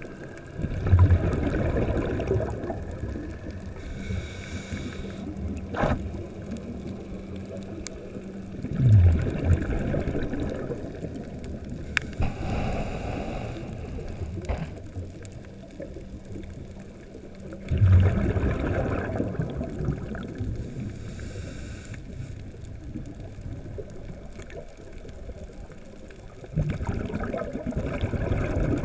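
Scuba diver breathing through a regulator, heard underwater: a hissing inhale and then a rush of exhaled bubbles gurgling away, on a slow cycle of about eight to nine seconds. There are four exhalations and three inhales, with a few sharp clicks in between.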